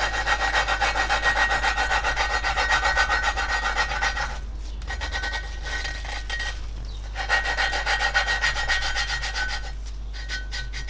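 A valve being lapped into its seat in a Classic Mini cylinder head with grinding paste, the lapping stick spun back and forth between the palms: a gritty, rapidly pulsing rasp of valve face on seat. It pauses briefly about four and seven seconds in. The paste is regrinding the seat to a clean sealing face.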